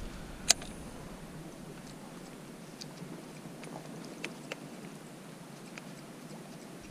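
Fishing rod and reel being handled in a kayak while fishing: a sharp click about half a second in, then a few faint scattered ticks over a quiet steady hiss.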